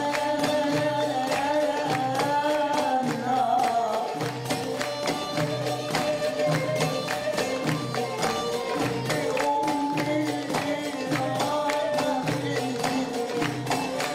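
Egyptian Sufi music played live: riqq and frame drums keep a steady, repeating rhythm under a sustained, wavering melody line.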